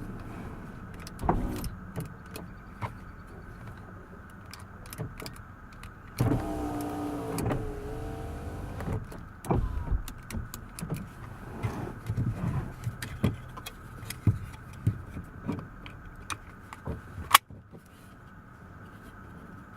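Scattered plastic clicks of a power window switch being handled and pressed, with the Oldsmobile Intrigue's power window motor running for about three seconds around six seconds in.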